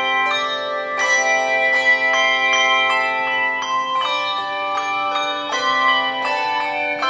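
Handbell choir ringing a piece: chords of handbells struck about once a second, each note ringing on and overlapping the next.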